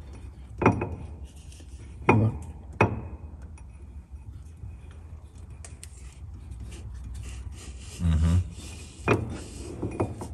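Rear differential ring gear being rolled by hand against the pinion, the gear teeth rubbing with several sharp clicks and knocks as the gears turn and the hand shifts its grip. The gears are being rolled through marking compound to print the tooth contact pattern on the loaded side, as part of setting backlash during a rebuild.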